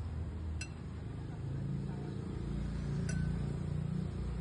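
Metal serving utensils clinking twice, two sharp, bright clinks about two and a half seconds apart, as bowls of bakso are dished up at the pot. A steady low rumble runs underneath.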